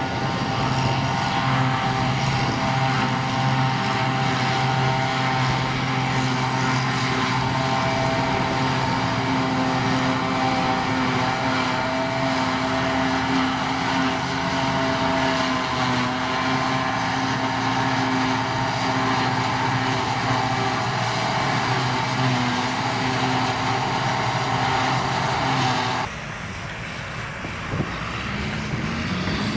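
John Deere 6810 self-propelled forage harvester running at working speed while chopping grass, a loud, steady machine hum with a few strong steady tones. Near the end the sound drops abruptly to a quieter Ford tractor powering a trailed harvester, its engine rising in pitch.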